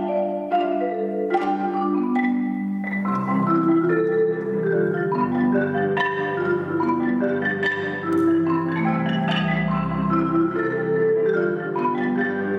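Marimba played as a duet by two players on one instrument with yarn mallets: a flowing line of struck bar notes over held lower notes, with a deep bass note sounding about nine seconds in.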